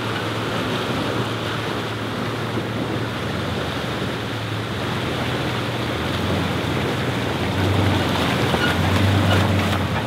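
Toyota FJ Cruiser's V6 engine running as the 4x4 drives slowly through a shallow river, with water rushing and splashing around its tyres. The engine hum grows louder near the end as the vehicle comes close.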